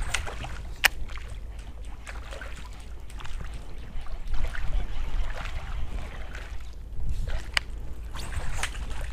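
Wind rumbling on the microphone over faint water sounds around a small boat, with a few sharp clicks and knocks: one about a second in and two more near the end.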